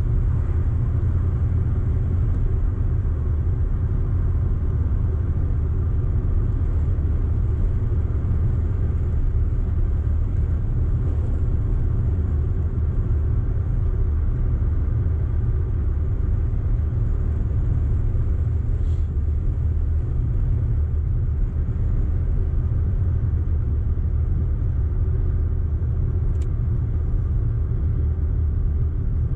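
Audi car driving at a steady pace: a steady low rumble of engine and road noise.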